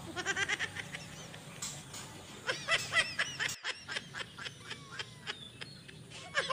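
Kittens mewing: many short, high-pitched mews in quick runs, with a brief gap a little past halfway.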